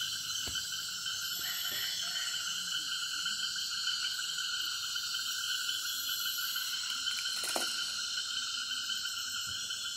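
Night chorus of frogs and insects: a steady, dense layering of continuous calls at several pitches, with no pause.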